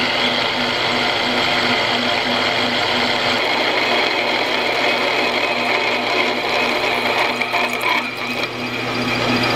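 Metal lathe drilling: a large twist drill cuts into the spinning workpiece, a steady machine sound with a pulsing hum. The cutting grows rougher and more uneven near the end.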